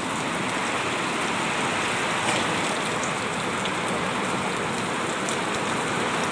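Steady hissing noise with faint scattered crackles, which ends abruptly at the close.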